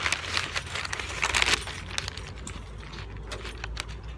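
Paper food wrapper being handled and crinkled: a dense run of crackles for about a second and a half, then sparser rustles that die away near the end, over a steady low rumble.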